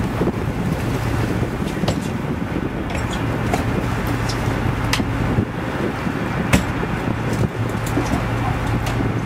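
Sport-fishing boat's engine running steadily with a low hum, under wind buffeting the microphone, and a few sharp clicks or knocks scattered through it.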